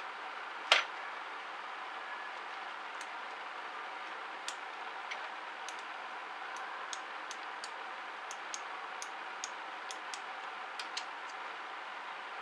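Small plastic-and-metal clicks from fingers working the angle grinder's opened power switch: one louder click about a second in, then a string of light, irregular ticks over a faint steady hiss.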